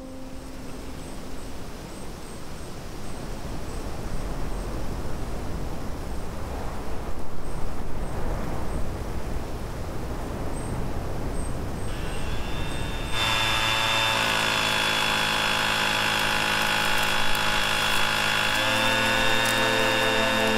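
Wind rushing through trees, growing louder in gusts. About thirteen seconds in, a handheld leaf blower starts up and runs with a steady whine, its pitch shifting a couple of seconds before the end.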